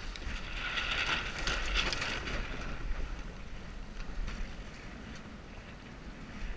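Water rushing and splashing along the hull of a Lightning-class sailboat under sail, with wind buffeting the microphone. The splashing is strongest in the first two seconds or so, then eases to a softer wash.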